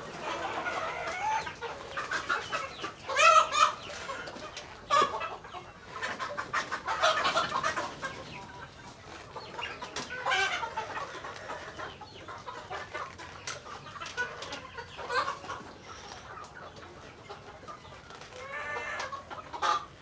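A flock of chickens clucking and calling, with louder calls standing out every few seconds over the steady clucking.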